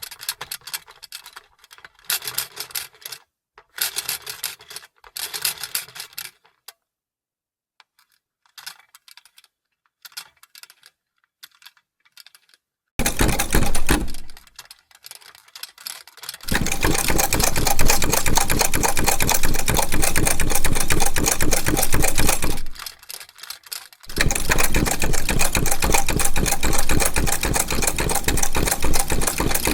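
Vintage sewing machine stitching: a few short, quiet runs of rapid clicking in the first half, then running fast and loud from about halfway through, with two brief stops before it runs on.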